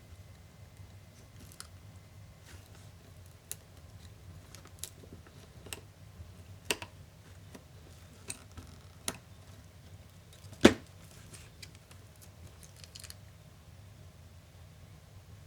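Light clicks and taps of small laptop parts and tools being handled during disassembly, scattered irregularly, with one much louder knock about two-thirds of the way through, over a faint low steady hum.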